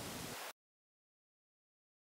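Faint steady hiss, the boosted noise floor of a softly recorded voice, cut off abruptly about half a second in to complete digital silence: the noisy gap after the words has been muted by an edit.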